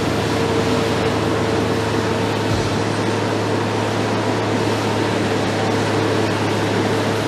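Tracked mini excavator's engine running steadily at constant speed, a level hum under a broad rushing noise.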